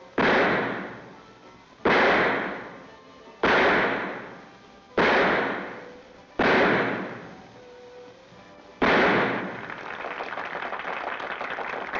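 Six revolver shots, each with a long echoing decay, roughly a second and a half apart with a longer pause before the last. After the sixth shot a dense crackle of an audience applauding sets in.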